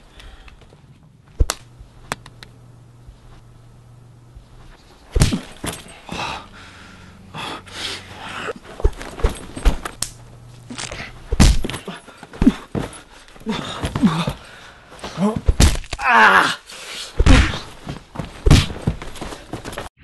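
Staged fight sound effects: a quick string of punch impacts, thuds and whooshes, with grunts among them. Before the fight starts there are a few clicks from a plastic Rubik's Cube being turned.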